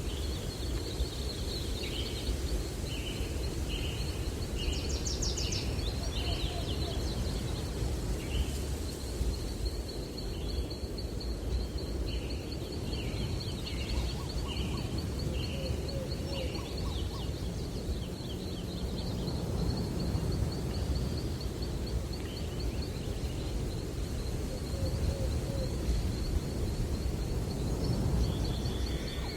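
Breeze through trees with birds singing: a rapid high trill runs on over steady wind noise, while another bird gives runs of five or six short chirps, early on and again in the middle, and a few lower calls come now and then.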